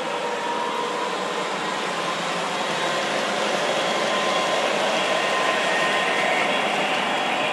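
Model train running on the layout: a steady whir and rumble of its motors and wheels on the track, slowly growing louder as it passes close by.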